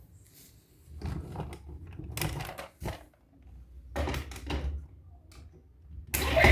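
Three short bursts of clicking and clattering from hard objects being handled. Music starts just before the end.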